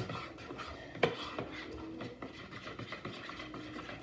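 Slime being mixed in a bowl: soft irregular rubbing and scraping with small clicks, one sharper click about a second in.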